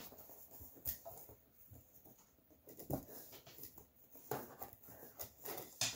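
Faint handling noises as a recliner release cable and its plastic pull handle are worked down into the arm of a leather recliner: rustling and scraping, with a few scattered light knocks, the loudest one near the end.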